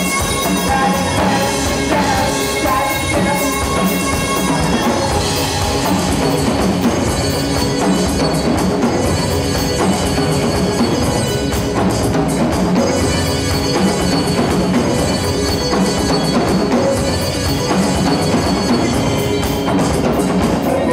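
A band playing without singing: a drum kit keeping a steady beat under keyboard.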